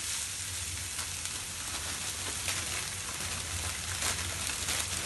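Mixed stir-fry vegetables sizzling steadily in a frying pan, with a few light knocks of a plastic slotted spatula against the pan as they are stirred. A low steady hum runs underneath.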